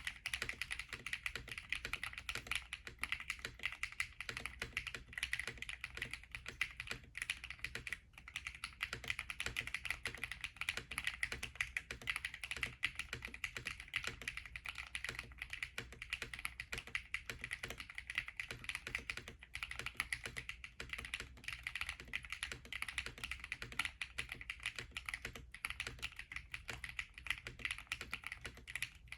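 Continuous fast typing on a stacked acrylic mechanical keyboard with Aster switches, PBT blank keycaps and an FR4 plate, a dense stream of key clicks with a short break about eight seconds in.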